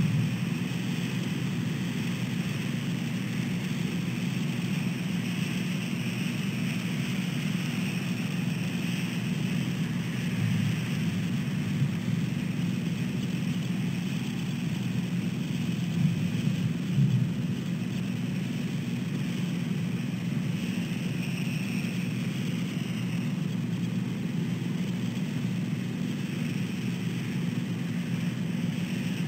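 Steady outdoor background noise on an outdoor microphone: a low rumble with a fainter hiss above it, with no distinct calls or knocks.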